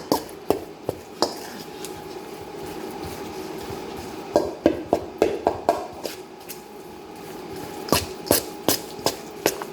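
A spoon stirring a thick oatmeal batter in a mixing bowl, knocking against the bowl in irregular clusters of clicks, with a quieter stretch of stirring about two to four seconds in.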